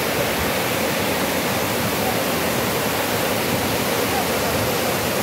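Waterfall crashing steadily: a dense, even rush of falling water with no let-up.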